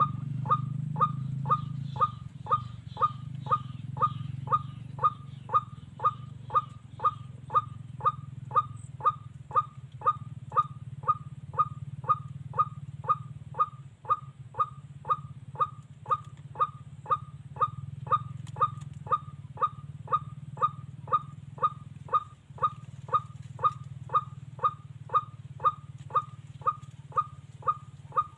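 An electronic bird caller plays a looped bird call through its speaker: one short, falling note repeated very evenly, just under twice a second, over a steady low hum.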